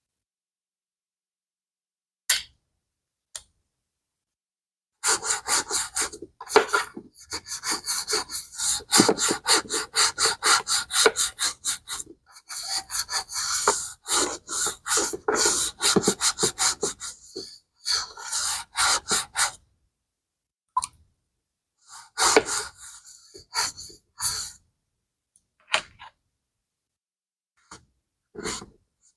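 Quick back-and-forth scrubbing strokes on a vintage Swiss Army bag during wet cleaning, about four or five strokes a second. After a few seconds of quiet it runs in a long spell with short pauses, then falls to a few scattered strokes.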